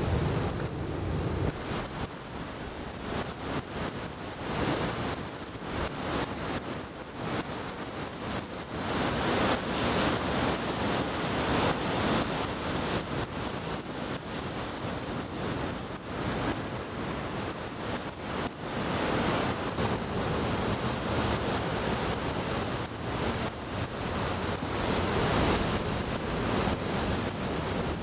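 Surf from a chest- to head-high typhoon swell breaking and washing on the beach, a continuous roar that swells louder several times as waves break, with wind buffeting the microphone.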